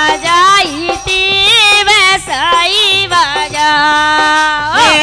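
Women singing a Kartik geet folk song, the melody gliding and wavering, with a long held note near the end that rises at its close.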